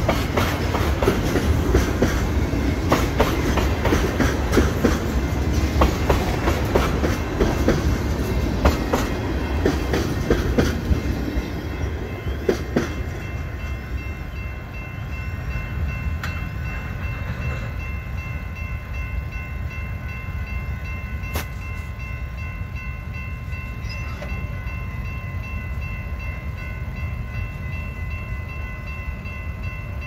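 Freight cars rolling through a railroad grade crossing, wheels clacking over the rail joints, until the train clears about twelve seconds in and the noise drops away. After that the crossing's warning bell keeps ringing over a low rumble.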